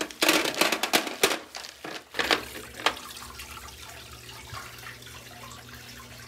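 Polished river pebbles clattering into the sheet-metal basin of a mirror wall fountain, a few sharp clacks in the first three seconds. Then the steady trickle of water running down the mirror into the basin, with the submersible pump's low hum.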